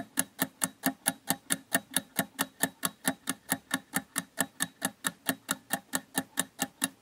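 Countdown-timer sound effect: steady clock-like ticking, about five ticks a second.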